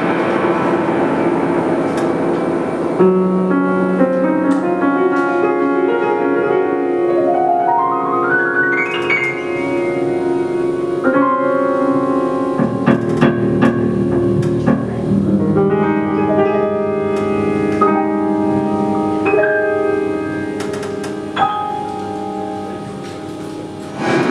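Live jazz played by piano, electric guitar, bass and drums, without the trumpet: sustained chords and melodic lines, with a rising run of notes about eight seconds in.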